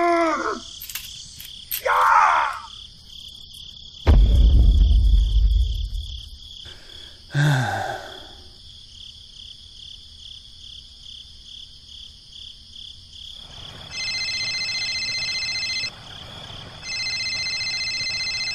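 Cartoon sound-effect track: a steady chirping of crickets underneath, with squeaky cartoon voices at the start and a heavy low rumble about four seconds in. Near the end an electronic phone ring sounds in two bursts.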